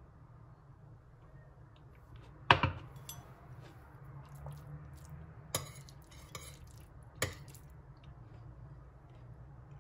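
Tableware clinks: a metal spoon tapping and scraping a ceramic plate as it scoops food, and a glass set down on a stone countertop. There are three sharp clinks, the loudest about two and a half seconds in, with smaller ticks between them, over a low steady hum.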